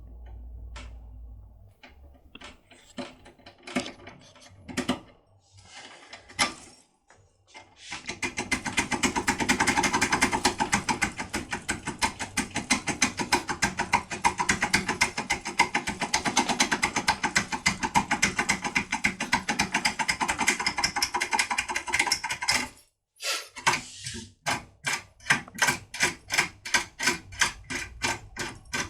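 AGB Scudo two-row impressioning tool, fitted with foil, worked in a cylinder lock: scattered metal clicks, then about fifteen seconds of rapid, continuous clicking and rattling, a brief pause, and steadier clicks about three a second.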